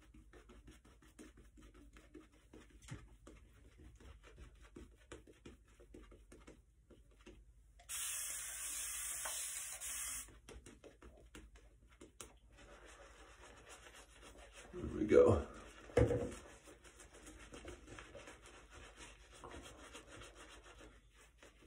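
Shaving brush with a Declaration Grooming B5 knot, scrubbing lather over a bearded face: a faint, scratchy rubbing made of many small strokes. About eight seconds in, a steady hiss lasts two seconds, and two short louder sounds come near fifteen seconds in.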